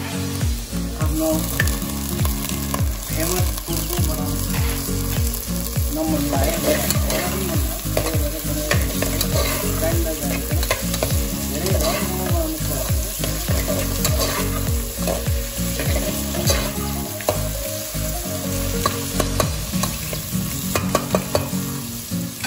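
Chopped onion and chicken pieces sizzling as they fry in oil in a metal pot while being stirred, with repeated knocks of the stirring utensil against the pot.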